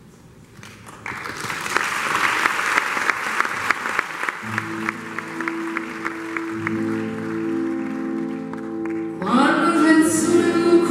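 Applause that settles into rhythmic clapping, about four claps a second, fading after a few seconds. About four seconds in, a button accordion starts holding steady chords. Near the end a woman's voice begins singing over the accordion and an acoustic guitar.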